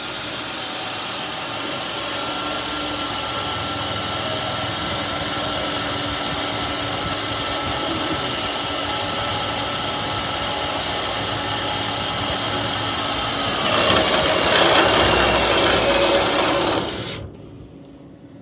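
Power drill running steadily as a Bauer high-speed-steel step drill bit cuts a hole through metal, with a steady whine. About fourteen seconds in the cutting grows louder and rougher. The drill stops shortly before the end.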